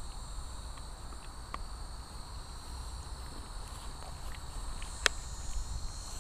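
Crickets chirring in a steady high-pitched chorus over a low rumble, with faint ticks and one sharp click about five seconds in.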